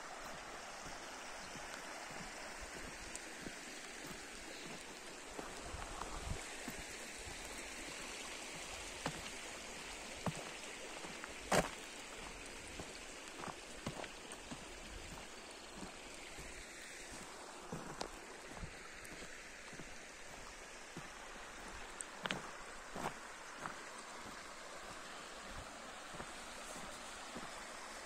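Shallow river running over rocks: a steady rushing, with scattered sharp clicks through it, the loudest about halfway through.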